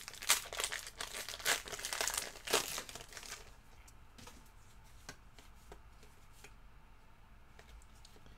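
Trading card pack wrapper crinkling and tearing as the pack is opened by hand, with dense crackling for about the first three seconds, then quieter handling with a few light clicks.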